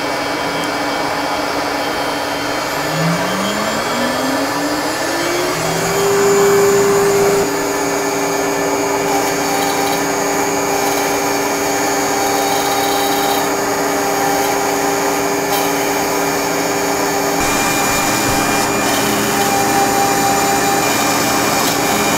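A CNC router spindle spins up with a rising whine about three seconds in, then holds a steady high whine while its 1/8 inch bit mills roughing pockets into wood. A loud steady rushing noise runs underneath throughout.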